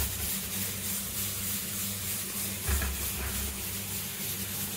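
Steady hiss over a faint low hum, with a brief low thud about three seconds in.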